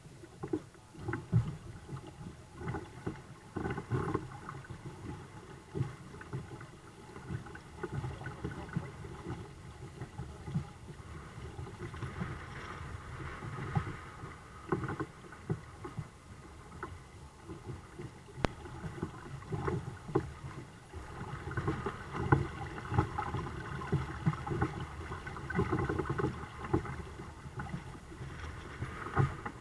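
Water slapping and splashing irregularly against the hulls of a sailing kayak catamaran, two kayaks joined by a frame, as it moves through small waves.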